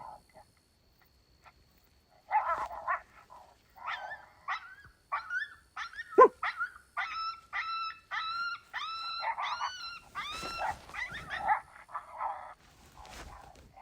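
Coyote-type yipping and howling: choppy yelps, then a run of about eight quick, arched, high-pitched yips, ending in rougher barking calls.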